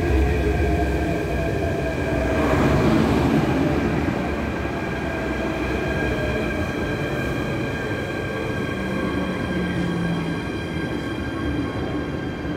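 MTR K-Train electric multiple unit pulling into the platform and slowing. Its wheels rumble on the rails under several steady high whines, with a louder swell of noise about two to four seconds in.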